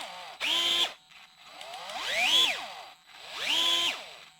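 DeWalt DCF680 8V Max gyroscopic cordless screwdriver running unloaded in three short whirring bursts, started and stopped by twisting the tool. The first and last bursts hold a steady pitch; the middle one rises and then falls in pitch as the wrist twist speeds the motor up and eases it off.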